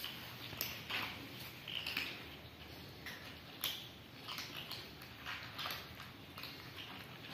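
Several cats and kittens crunching dry kibble from a plastic tray, with irregular small crunches and clicks.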